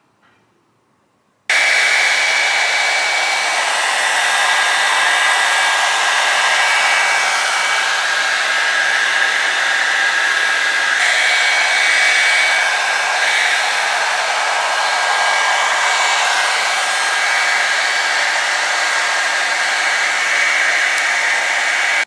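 Revlon One Step hair dryer brush running steadily: the rush of its blown air with a high motor whine. It starts suddenly about a second and a half in.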